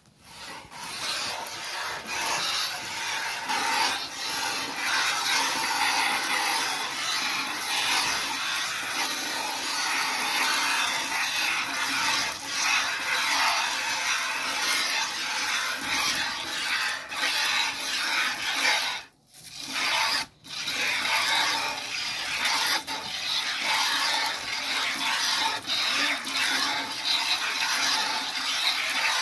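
Hand milking a cow: streams of milk squirting from the teats into a plastic bucket, a near-continuous hiss, broken by two short gaps about two-thirds of the way through.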